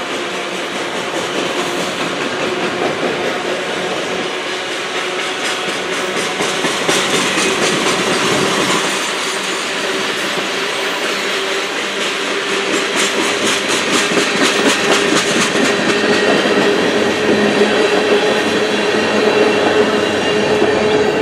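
Manifest freight train cars (autoracks, boxcars and a tank car) rolling past on steel wheels, clacking steadily over the rail joints. A steady tone runs underneath and edges slightly higher toward the end.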